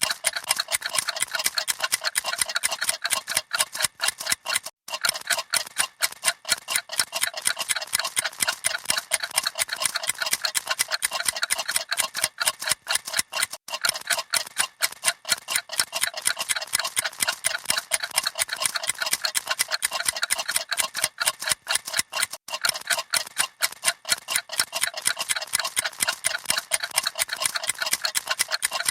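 Many clocks ticking rapidly together: a fast, dense run of light, overlapping ticks that keeps an even pace.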